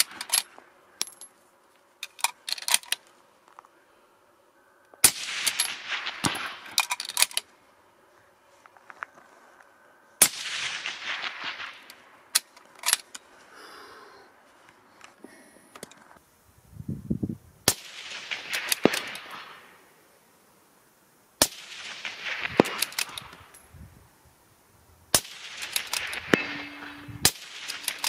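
Tikka T3X rifle in 6.5 Creedmoor, fitted with a suppressor, firing a slow series of single shots a few seconds apart, each followed by a long rolling echo, with shorter sharp clicks between the shots.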